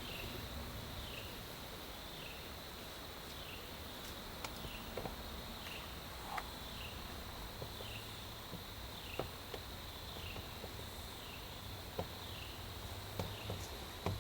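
Insects chirping in a steady outdoor chorus: a constant high hum with a short falling chirp repeating evenly about twice a second, and a few faint ticks and rustles.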